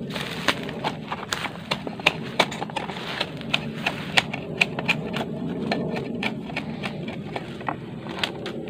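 Bolo blade chopping at the node partitions inside a split, opened bamboo pole to remove them: sharp, irregular wooden knocks about two to three a second.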